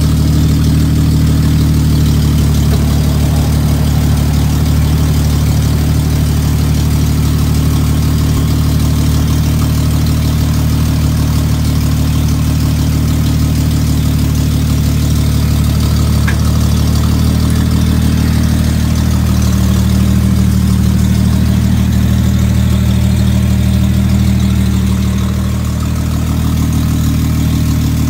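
The engine of a 1956 GMC pickup running at a steady idle, with a slight change in its note for a few seconds past the middle.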